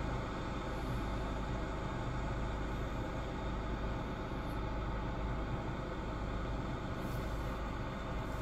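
Steady low rumble and hiss of an idling car engine, heard from inside the car's cabin.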